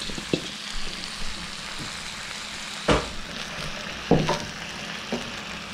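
Whole lobsters sizzling on the hot plate of an electric George Foreman grill, a steady frying hiss. A few sharp knocks cut through it, the loudest about three and four seconds in.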